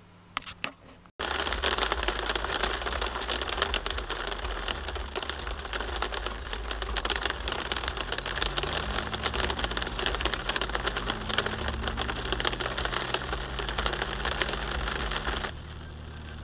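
Hail pelting a car windshield: a dense, continuous rattle of small hard hits, with a low hum underneath. It starts abruptly about a second in and stops suddenly near the end.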